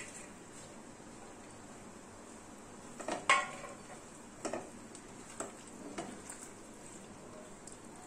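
Fried okra stirred into a simmering gravy in a non-stick kadai with a flat spatula: a steady low sizzle under scrapes and knocks of the spatula against the pan. The loudest cluster of knocks comes about three seconds in, then a few single ones about a second apart.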